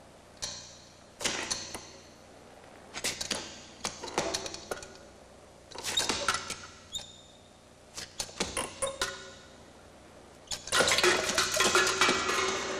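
Dry mechanical clicking and clattering in short bursts, a cluster every second or two, becoming a dense continuous rattle near the end: the film's sound effects for a stiff mannequin body moving and handling things.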